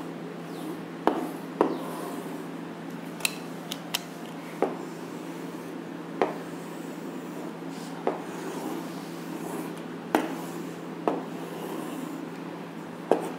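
Chalk drawing lines on a blackboard: scattered sharp taps and short scrapes as each stroke begins, over a steady low hum.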